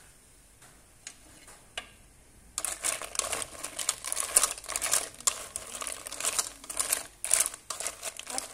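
Snail shells clattering against each other and the metal pot as wooden chopsticks stir them. A few soft clicks come first, then a rapid, irregular rattling starts about two and a half seconds in.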